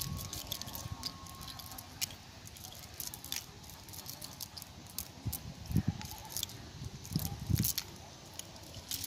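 A nylon cast net being handled on wet mud, its mesh and sinker weights giving scattered light clicks and rattles as small fish are picked out of it.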